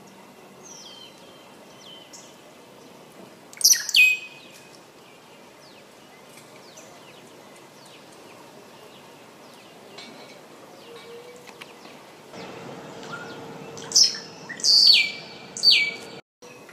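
Scrub blackbird calling: loud, sharp notes that drop steeply in pitch and end on a held whistle, a pair about four seconds in and three more near the end, with fainter chirps in between.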